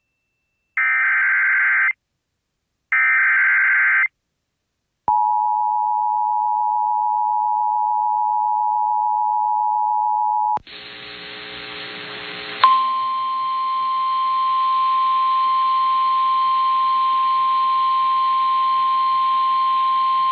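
Emergency Alert System data header: two short screeching digital bursts about a second each, then the steady two-tone EAS attention signal for about five seconds. After a couple of seconds of radio static, a steady single-tone NOAA Weather Radio warning alarm plays over hiss.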